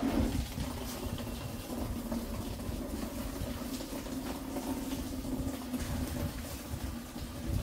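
Water running into a bucket or tub, over a steady hum.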